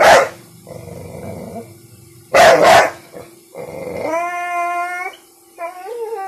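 An American Bully dog barking loudly, once at the start and twice about two and a half seconds in, then letting out long, drawn-out whining howls. These are the barks of a frightened, annoyed dog.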